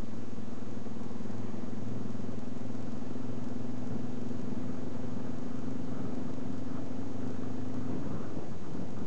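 Honda XL250 Degree's single-cylinder four-stroke engine running steadily while riding, over a haze of wind and road noise. The steady engine note fades about eight seconds in.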